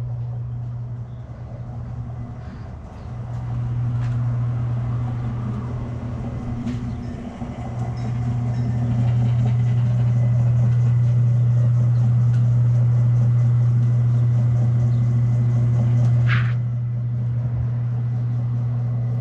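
Electric boat-lift winch motor running with a steady low hum, with a brief squeal about sixteen seconds in, after which the hum drops slightly.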